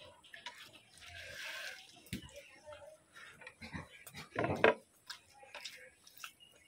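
Close-up chewing and wet mouth sounds of someone eating rice and rohu fish curry by hand: a scatter of soft smacks and clicks, with the loudest one a little after halfway.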